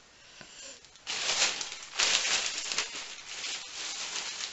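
Rustling and crinkling as a blouse and shopping bags are handled, loudest in two surges about one and two seconds in, then easing off.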